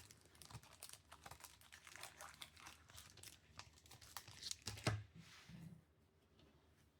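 Plastic crinkling and rustling with light clicks as trading cards are handled in their plastic sleeves and wrappers. The loudest crinkle comes about five seconds in, then it stops.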